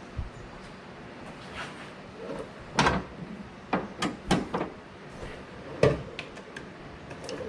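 A car hood being moved and propped higher: a run of knocks and clunks, with a loud one about three seconds in, a quick cluster just after, and another loud one near six seconds.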